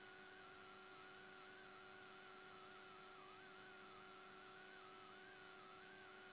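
Near silence: faint hiss with a steady low hum and a thin, slightly wavering whine.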